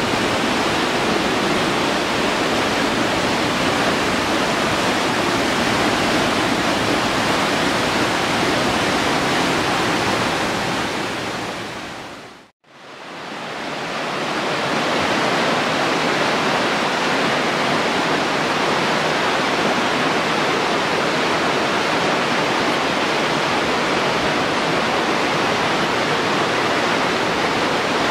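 The Aare river rushing through its gorge: a steady roar of fast, turbulent water. It fades away to silence near the middle and fades back in.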